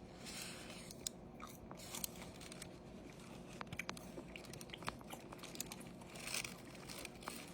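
Close-miked chewing of Taco Bell loaded potatoes, faint, with scattered short mouth clicks.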